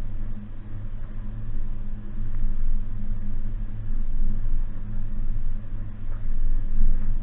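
2019 Suzuki Jimny's four-cylinder petrol engine running at a steady pitch while driving off-road, with rolling road noise around it.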